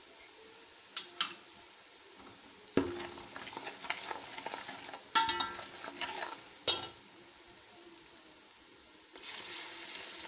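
Stainless steel slotted spoon stirring spices into onions frying in oil in a metal pot: a couple of light clinks, then scraping with several sharp ringing knocks of spoon on pot. About nine seconds in, a steady sizzle of the masala frying in the oil comes up.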